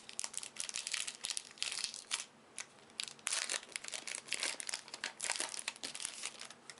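Sealed trading-card booster pack wrapper being torn and pulled open, with irregular crinkling and crackling of the wrapper in clusters throughout.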